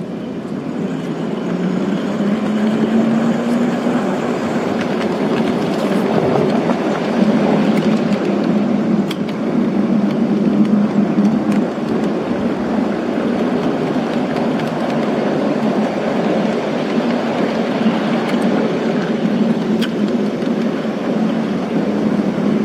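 1-inch-scale Alco RS3 diesel-electric model locomotive running along the track: a steady drive hum with wheel-on-rail rumble, growing louder over the first few seconds, with a few light clicks.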